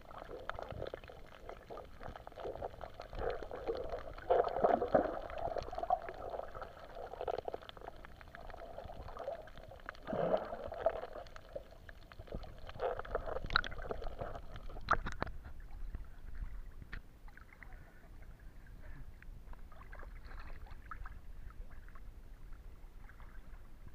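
Muffled water noise heard underwater through an action camera's waterproof case while snorkeling: gurgling, sloshing swells that rise and fall, with a few sharp knocks a little past the middle, after which it turns quieter and duller.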